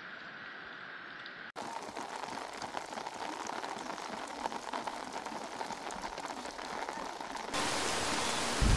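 Steady rain falling and pattering, a continuous hiss flecked with scattered drop ticks. The sound shifts abruptly about a second and a half in and grows louder near the end.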